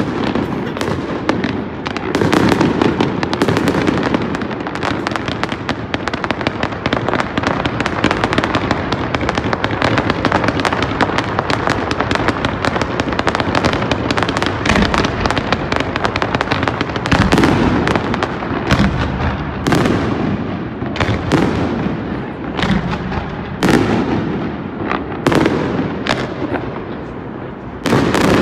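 Aerial fireworks display: dense, continuous shell bursts and crackling, with many sharp bangs one after another.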